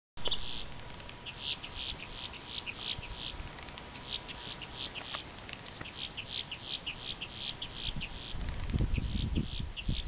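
A grackle calling: a rapid series of short high notes, about four a second, in two long runs with a short break after about three seconds. A low rumble of wind on the microphone comes in near the end.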